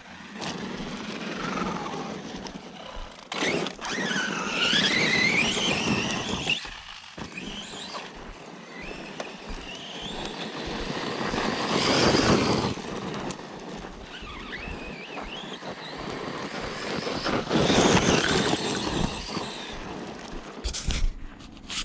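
Arrma Outcast 4S RC truck driving hard on loose dirt: its electric motor whines, rising and falling with the throttle, over the rush of tyres spinning and throwing dirt in repeated surges. The surges are loudest about twelve and eighteen seconds in.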